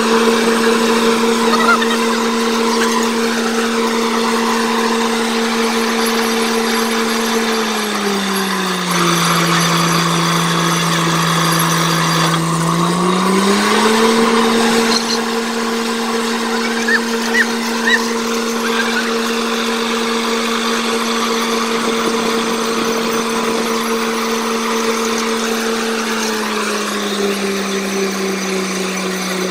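Truck-mounted borewell drilling rig running loud: a steady engine hum that drops in pitch about 8 s in, climbs back a few seconds later and drops again near the end, over a continuous hiss and spatter of compressed air blowing mud and water out of the bore.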